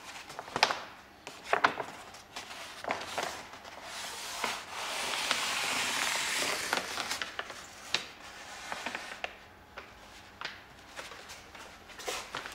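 A large vinyl decal is being laid onto a boat hull. The stiff backing paper crackles and snaps in a few sharp bursts, then a felt-edged squeegee rubs along the vinyl in one long smooth swipe about five seconds in, followed by scattered light crackles.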